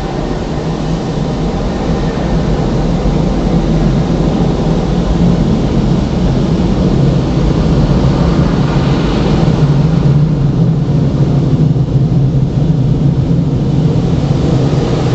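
Coleman Hanna Water Wizard touchless car wash machinery running, heard from inside the car: a steady, loud roar over a low hum, building over the first few seconds and then holding.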